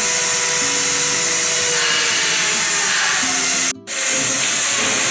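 Loud, steady rushing noise of workshop machinery at a CNC boring and drilling machine, with a few short, low steady tones over it. The noise cuts out for a split second about three and a half seconds in, then carries on.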